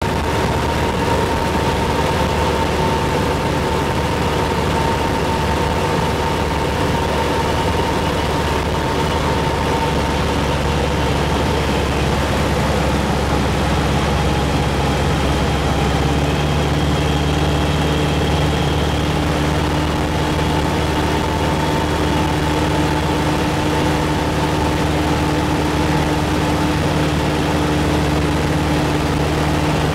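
Steady drone of a propeller aircraft's engine heard from inside its cabin in flight, with wind noise on the microphone; the engine note shifts slightly about halfway through.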